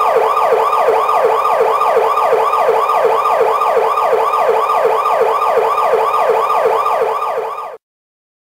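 Siren-like wail made of quick falling sweeps in pitch, repeating about three and a half times a second, that cuts off suddenly near the end.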